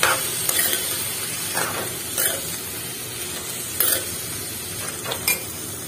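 Boiled corn kernels and crushed peanuts sizzling in onion-spice masala in a metal kadhai, with a metal spoon stirring and scraping across the pan every second or so. It is the corn frying through in the masala for its last couple of minutes.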